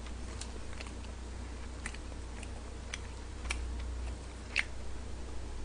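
Scattered light clicks and ticks of wooden chopsticks working through a pan of noodles, over a low steady hum.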